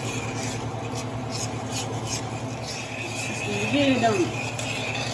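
A spoon stirring and scraping a melted butter and brown sugar mixture in a stainless steel saucepan, in irregular strokes, over a steady low hum.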